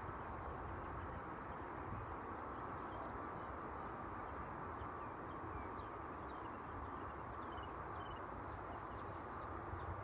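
Steady outdoor ambience: an even background hiss with a low rumble, and a few faint, short bird chirps from about halfway through.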